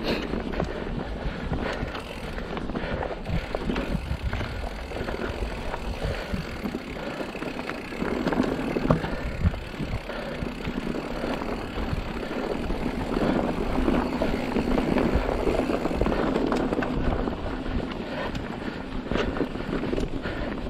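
Mountain bike rolling fast down a dirt singletrack: steady tyre and trail rumble with scattered knocks and rattles from the bike over bumps, and wind on the microphone.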